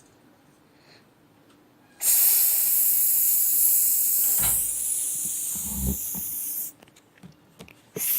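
A steady hiss for a drink being filled, starting about two seconds in and running for nearly five seconds, with a couple of soft knocks from handling the small cup, then a second hiss starting near the end.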